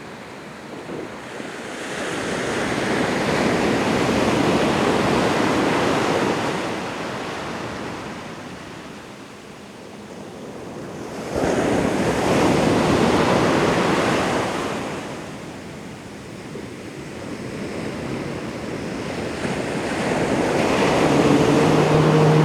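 Ocean surf: waves wash in and draw back in three slow swells. The second comes in suddenly about halfway through as a wave breaks.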